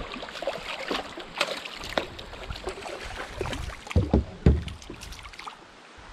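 A hooked smallmouth bass thrashing at the water surface beside a kayak: irregular splashes and slaps, with a couple of heavy thumps a little past the middle, quieter as the fish is lifted out near the end.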